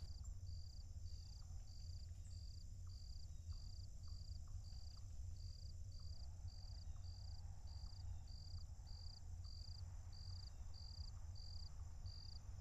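A cricket chirping steadily at night, one short high chirp roughly every half second, over a low steady hum.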